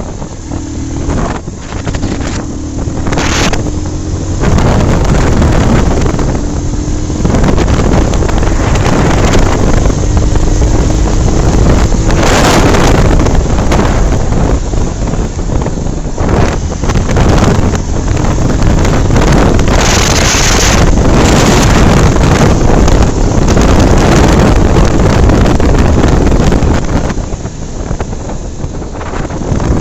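A Bajaj Pulsar 220's single-cylinder engine running on the move, under heavy wind buffeting on the microphone. The engine note slowly rises over the first dozen seconds as the bike gathers speed.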